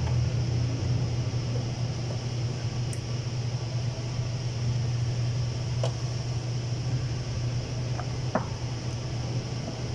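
A steady low hum, with a few faint light clicks and taps from hands working among the engine-bay wiring harness.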